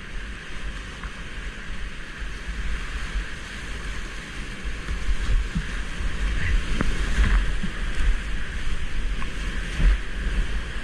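Whitewater rapids rushing and splashing around a kayak running through them, over a heavy, uneven rumble of water and wind buffeting the microphone. Sharper splashes come in the second half, the loudest near the end.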